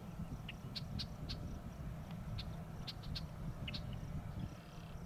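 Birds chirping with short, scattered high calls over a steady low outdoor rumble.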